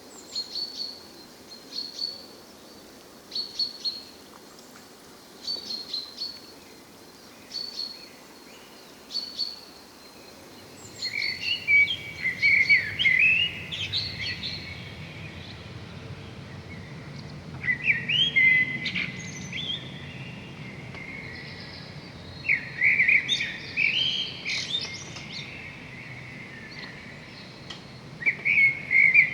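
Seabirds calling. Short high calls repeat about every second and a half, then from about ten seconds in louder, lower calls come in bursts over a low steady background rush.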